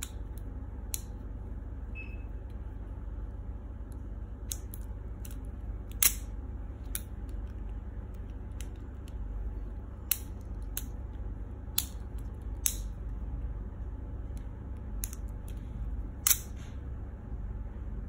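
Leatherman FREE P4 multitool's handles and implements snapping open and shut in the hand: about ten sharp metallic clicks at irregular intervals, over a low steady hum.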